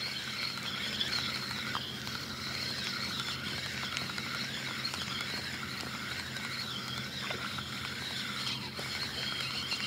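Steady outdoor chorus of calling animals at the pond edge, a wavering, pulsing band of calls running without pause, with a few faint ticks.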